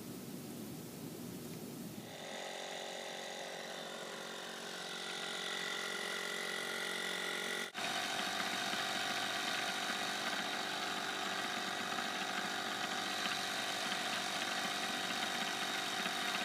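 Portable air compressor motor running steadily with a humming, many-toned drone, inflating a freshly plugged tire; it starts about two seconds in after a soft hiss and breaks off for an instant near the middle.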